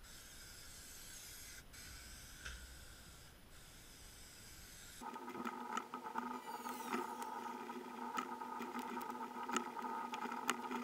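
Faint rubbing and scraping of hands pressing carpet lining onto the panels inside a Land Rover's rear load area. About halfway through, a steady hum of several tones joins in, with scattered small clicks and a few quick squeaks.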